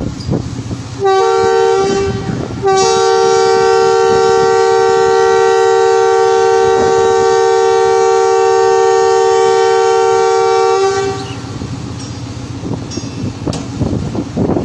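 Pakistan Railways diesel locomotive sounding its two-note horn: a short blast about a second in, then a long steady blast of about eight seconds. The engine rumbles underneath throughout and can still be heard running after the horn stops.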